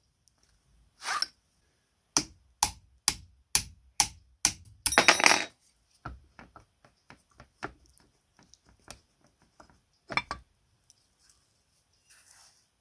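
Small metal parts clicking and clinking as they are handled: a run of sharp clicks about two a second, then a short ringing, jangling rattle about five seconds in, followed by lighter scattered clicks and one more knock near the ten-second mark.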